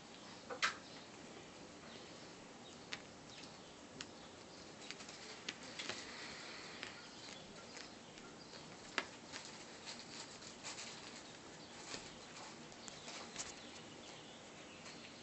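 Ragdoll kittens playing on a satin bedspread: faint rustling of fabric and scattered soft clicks and taps at irregular moments over a steady hiss.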